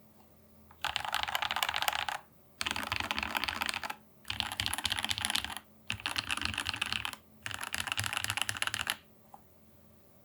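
Fast typing on a custom Rama U80-A SEQ2 mechanical keyboard with lubed, filmed Alpaca linear switches on a brass plate. There are five bursts of rapid keystrokes with short pauses between them, and the typing stops about a second before the end.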